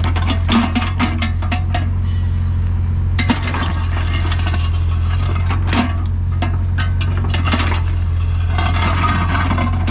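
Doosan DX55WA wheeled excavator's diesel engine running steadily, with irregular metallic clanks and rattles from the working machine.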